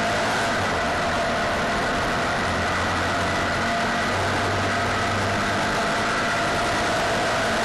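Onboard sound of a 602 cc dirt-track race car's engine running hard at a steady high pitch, wavering slightly up and down, over constant wind and road noise.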